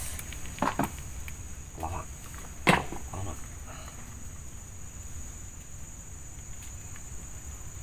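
Insects, crickets or cicadas, giving a steady high-pitched drone throughout. A few brief sounds come in the first three seconds, the loudest a sharp knock nearly three seconds in.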